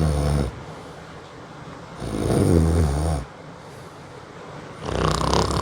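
A person snoring: rattling snores that repeat about every two and a half seconds, one tailing off at the start, a full one about two seconds in, and another beginning near the end.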